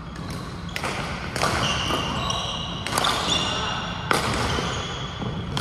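Badminton rally: rackets strike the shuttlecock with several sharp hits about a second apart, and court shoes give short high squeaks on the hall floor between the hits.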